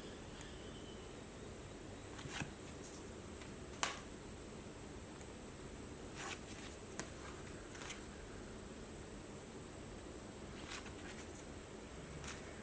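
Tarot cards being dropped one at a time onto a pile, giving soft taps and slaps every second or two, the sharpest about four seconds in. A faint steady hiss with a thin high whine runs underneath.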